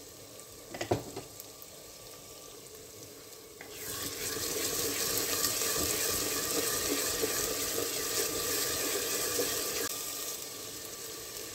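Onions and garlic paste frying in oil in a clay pot, with a light sizzle and a brief knock about a second in. About four seconds in the sizzle becomes much louder as the garlic is stirred into the hot oil with a spatula, and it eases again near the end.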